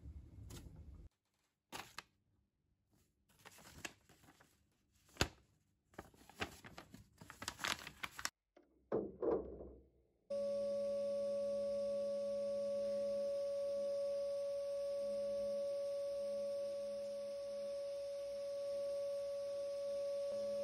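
Scattered clicks, taps and rustles of handling, then about ten seconds in a sandblasting cabinet starts up: a steady whine over a hiss of air and abrasive as a cast iron pipe-vice part is blasted clean.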